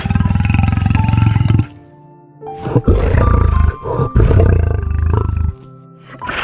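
A large animal giving two long, deep, pulsing roars or growls, the second starting about two and a half seconds in, over background music.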